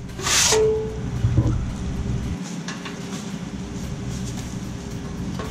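Sheet-metal smoke pipe (water-heater flue pipe) being cut: a short rasping scrape of metal at the start, followed by a brief metallic ring that fades. A steady noise continues underneath.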